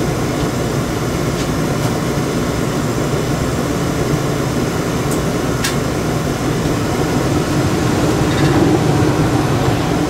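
Induced-draft 80% AFUE gas furnace running with its burners lit and the circulating blower on: a steady low rush of flame and moving air, a little louder near the end, with a couple of faint ticks.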